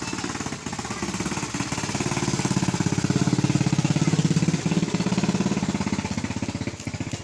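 A small engine running with a rapid, even beat, growing louder a couple of seconds in and easing off toward the end, over fainter scraping of a knife scaling a milkfish.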